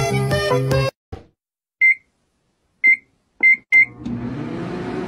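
Music cuts off about a second in. Then come four short, high electronic beeps of a microwave oven's keypad, and near the end the microwave starts running with a steady hum that rises briefly in pitch as it starts.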